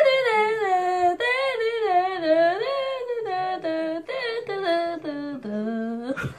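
A boy singing a cappella without clear words, close to humming, his voice sliding up and down between held notes. Near the end he drops to a lower held note, followed by a short knock.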